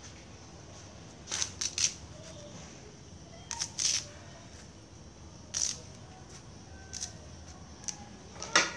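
Small green leaves being stripped by hand from their stems over a plastic colander: short, crisp rustling snaps that come in quick bursts, the loudest near the end.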